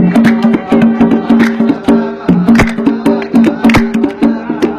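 Instrumental passage of dan music: held melodic notes over a quick, steady hand-percussion beat in a maqsum rhythm.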